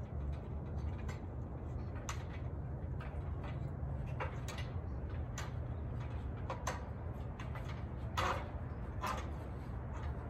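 Feet and hands knocking on the rungs of a metal extension ladder as a person climbs down it, a sharp clank every second or two, the loudest one near the end. A steady low rumble runs underneath.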